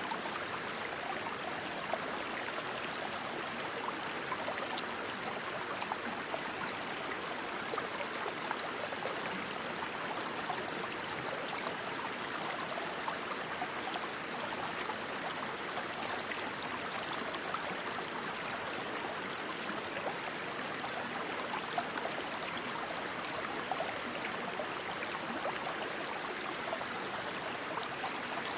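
Rushing stream water flowing steadily. Short high chirps sound over it now and then, more often in the second half.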